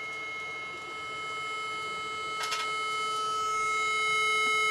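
Steady electronic tone at several pitches from a homemade amplifier-driven coil device fed a frequency from a phone app, growing gradually louder as the amplifier's volume knob is turned up.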